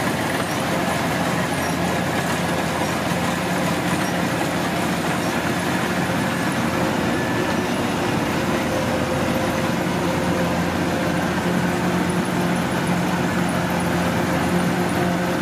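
Kubota DC105X combine harvester running steadily, a constant diesel engine and machinery drone with a few steady hums over it.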